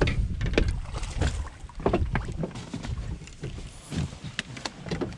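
Wind rumble on a chest-mounted camera's microphone, with scattered, irregular knocks and clicks of a person moving about on a bass boat deck.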